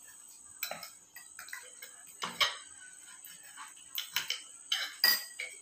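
Knife cutting through the crisp baked crust of a coconut bun on a glass plate: irregular clicks and short scrapes, the sharpest near the end.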